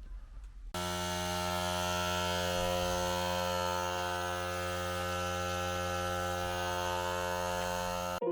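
A steady buzzing hum, like a small electric motor running, that starts suddenly just under a second in and cuts off near the end.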